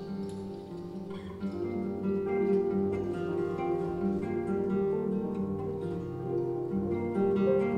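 Live improvised instrumental music: several held pitched notes overlapping, growing louder about a second and a half in.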